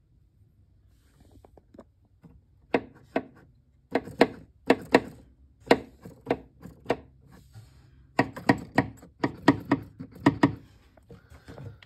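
Key action of a homemade wooden pipe organ, keys and pallet valves clacking as the keys are pressed and released. A run of sharp, irregular wooden knocks, starting a few seconds in and coming quicker near the end, with no pipe notes sounding.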